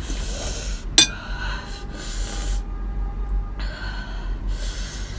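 A woman's sharp, hissing breaths through the mouth, four of them, reacting to the chili heat of hot and spicy noodles. A single sharp click about a second in.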